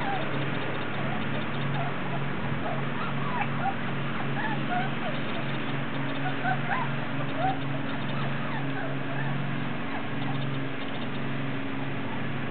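Pinscher puppies, four weeks old, making many short high squeaks and whines, mostly in the first half, over a steady low hum.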